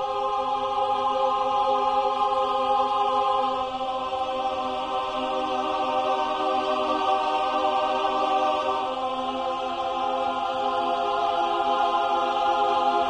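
Background music of sustained choir-like chords, moving to a new chord about nine seconds in.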